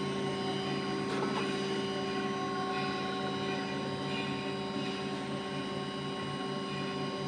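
NC special-purpose twin-side 4-axis turning machine running, a steady mechanical hum with several steady whining tones.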